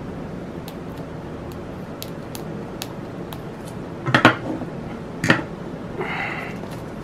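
A small blade scoring the shrink-wrap on a CD case, with light clicks and scratches, then two sharp knocks on a wooden tabletop about four and five seconds in as the blade and case are put down. A brief rustle of plastic wrap near the end.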